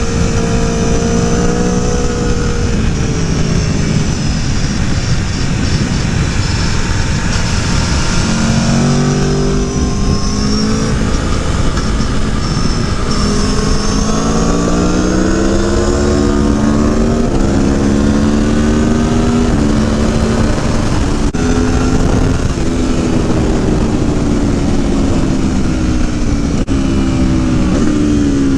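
Aprilia Tuono V4 Factory's V4 engine on track: the revs fall off in the first few seconds, then climb in a run of stepped rises as it accelerates up through the gears, and sink slowly again over the last several seconds as the rider rolls off. Steady heavy wind noise underlies the engine.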